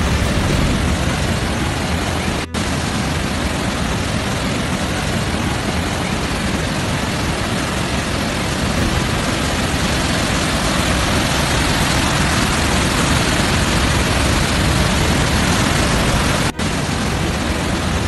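Floodwater rushing, a loud steady noise with a heavy low rumble, breaking off for a moment about two and a half seconds in and again near the end.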